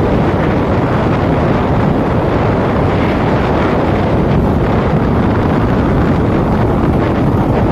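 Wind buffeting the microphone while riding on a moving motorcycle, a steady, loud rumble and hiss that drowns out the engine.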